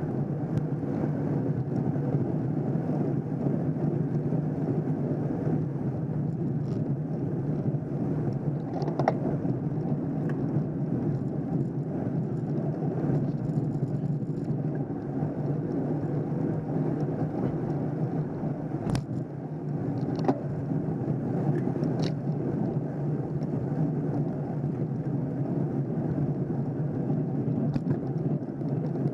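Steady rumble of wind and road noise on the microphone of an action camera riding in a pack of road bicycles climbing a hill, with a few short sharp clicks about 9, 19, 20 and 22 seconds in.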